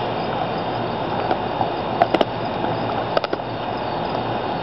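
An American Pit Bull Terrier gnawing on a deer's skull, with a few sharp cracks of teeth on bone about two seconds in and again about three seconds in, over a steady background hiss.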